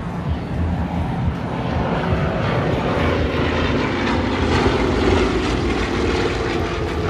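Piston-engined propeller aircraft flying a display pass, its engine running steadily and growing a little louder toward the middle as it comes closest, then easing off.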